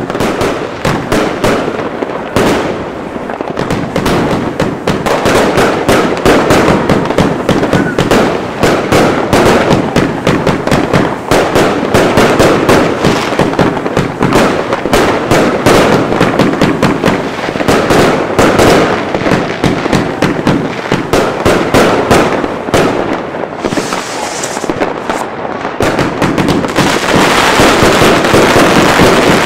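Pyrocentury 'Feuer Frei' 288-shot 25 mm fireworks cake firing a rapid, continuous volley of shots and bursts. The barrage grows denser and a little louder near the end.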